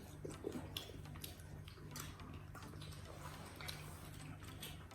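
Quiet eating sounds: scattered small clicks and taps of chewing and utensils, over a low steady hum.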